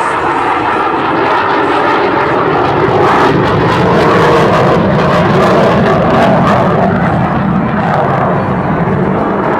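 F-15 Eagle's twin jet engines at high power as the fighter pulls up from a slow pass into a vertical climb: a loud, steady jet rush that swells a little midway.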